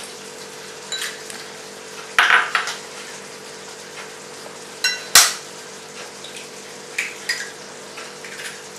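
Scattered clinks and knocks of utensils against a bowl, with one sharp knock about five seconds in, over a steady hum.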